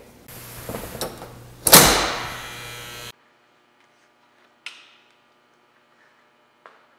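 A loud bang about two seconds in that rings on for about a second. After an abrupt cut there is a faint steady hum with two small clicks.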